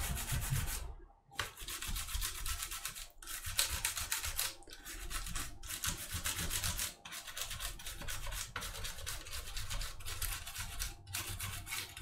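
A toothbrush scrubbing the grimy switch plate of a Cooler Master MasterKeys Pro S keyboard between the switches, wet with glass cleaner: quick back-and-forth bristle scrubbing in bouts, with brief pauses every second or two.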